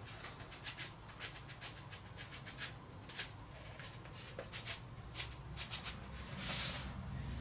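Dry sand poured from a plastic cup onto a steel plate and into oily tube openings: a faint trickling hiss with scattered light ticks of grains, and a longer rush of sand about six and a half seconds in.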